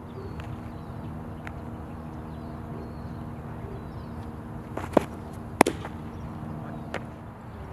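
A pitched curveball smacking into a catcher's leather mitt: one sharp, loud pop a little past halfway, just after a lighter click, with another faint click about a second later. Under it runs a steady low background hum.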